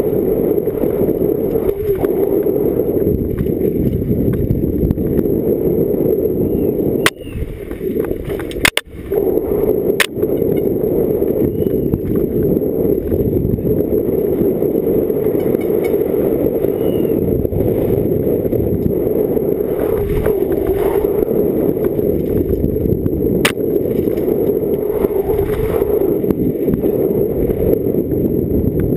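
Downhill mountain bike racing over a rocky dirt track, heard through the rider's action camera: a constant rush of wind and tyre rumble with chassis rattle. About seven seconds in it briefly drops away, broken by a few sharp knocks near nine and ten seconds.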